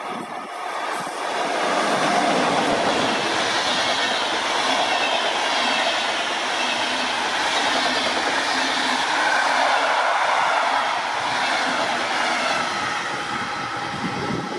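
Passenger coaches of a locomotive-hauled train passing close by at speed, with the rush and clatter of wheels on the rails. The sound swells over the first two seconds and eases slightly near the end as the train draws away.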